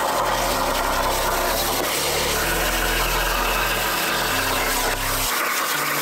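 Langmuir Systems CrossFire CNC plasma table's torch cutting steel plate: the plasma arc gives a steady, loud hiss. Low bass notes of background music sit underneath and drop out about five seconds in.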